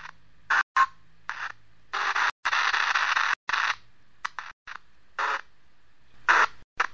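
Ghost box (spirit box) sweeping through radio stations: short choppy bursts of radio static cutting in and out, with a longer burst about two seconds in. The host takes a fragment of it for a voice answering with the name Phil.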